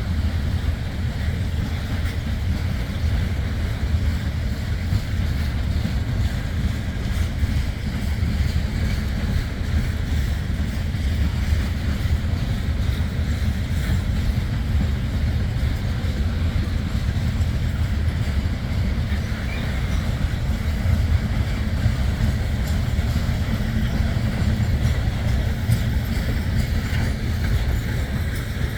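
Freight train rolling past at steady speed, a continuous low rumble of the cars on the rails, with wind buffeting the microphone.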